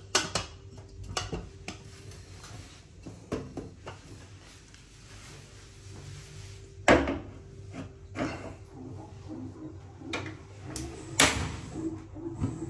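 An aluminium cooking pot and its lid being handled and set down on a gas stove, with a stove knob turned: scattered sharp knocks and clicks, the loudest about seven and eleven seconds in.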